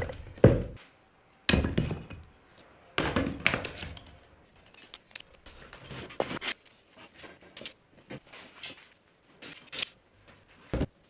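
Demolition work: a few heavy thuds and crashes in the first four seconds, followed by lighter scattered knocks and clicks.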